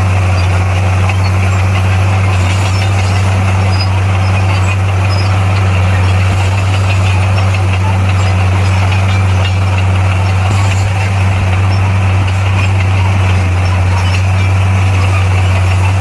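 Heavy construction machine's diesel engine running steadily with a constant low hum.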